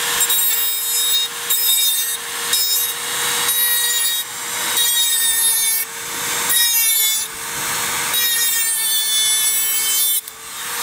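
Handheld rotary tool with a sanding drum grinding the edge of a knife blade: a steady motor whine under a rasping grind that comes in repeated passes, each a second or so long, with short breaks between them.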